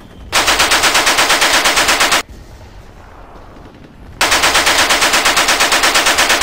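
Belt-fed machine gun firing two sustained bursts of about two seconds each, rapid evenly spaced shots at about ten a second, with a short pause between them; the second burst is still going at the end.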